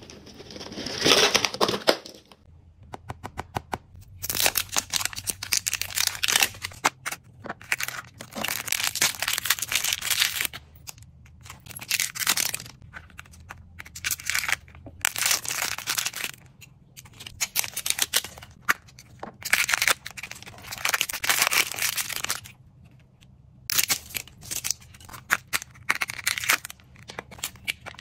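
Plastic wrappers crinkling and tearing in repeated bursts as toy-candy packaging is unwrapped by hand, with sharp clicks from hard plastic capsules being handled and opened.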